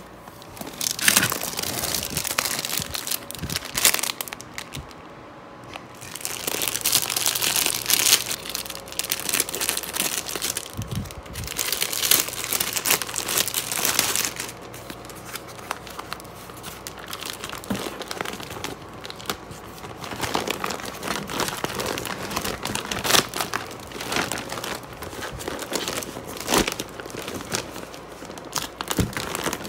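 Plastic packaging crinkling as it is handled: clear film wrapping and a woven-plastic zippered storage case rustle and crackle in bouts of a few seconds each.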